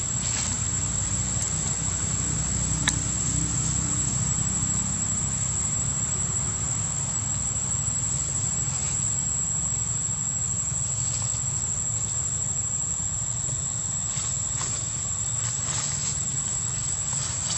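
Steady high-pitched insect drone in the forest, with a low rumble underneath and one sharp click about three seconds in.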